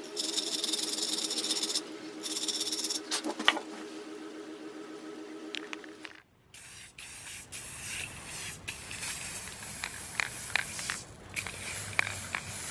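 For about six seconds, hand sanding of a metal drill part: scraping strokes over a steady wavering tone. Then an aerosol spray-paint can hissing in bursts, with a few sharp clicks, as black paint is sprayed onto the hand drill's frame and handle.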